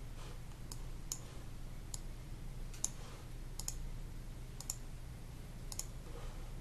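Sharp computer clicks, about seven spread over six seconds, several coming as quick double clicks, over a steady low hum.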